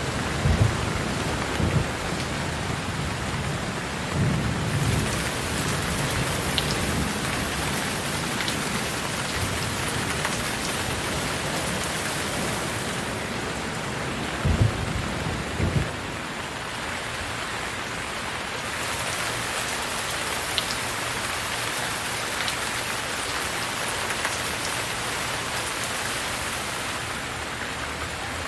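Steady rain with short, low rumbles of thunder, several in the first few seconds and two more about halfway through.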